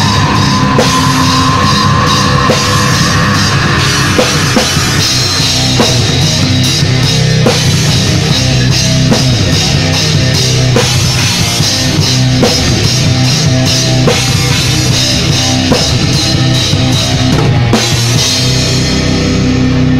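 Rock band playing live and loud: a drum kit with cymbals drives under guitars.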